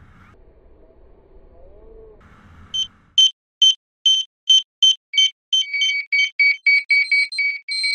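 Electronic heart-monitor beeps of an ECG sound effect, starting about three seconds in after a faint low rumble. Short high beeps come about twice a second, and a second, lower beep joins partway as the beeping quickens to three or four a second.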